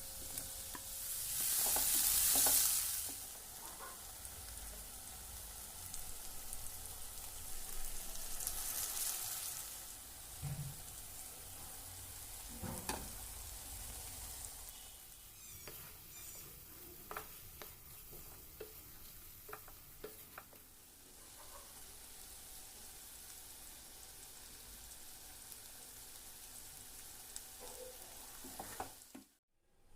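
Prawns frying in a pan of oil and masala, sizzling, with a spatula stirring and scraping against the pan. The sizzle swells loudest about two seconds in and again around eight to ten seconds, with sharp clicks of the spatula through the middle, and the sound cuts off just before the end.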